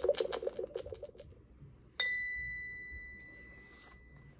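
Electronic lie detector game toy giving its verdict: a quick run of low buzzing pulses for about a second, then, about two seconds in, a single bright ding that rings out and fades over about two seconds, signalling a truthful answer.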